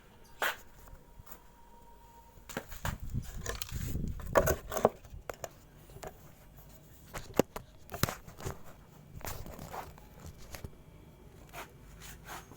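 Handling noises: scattered sharp clicks and knocks with rustling and scraping, busiest a few seconds in.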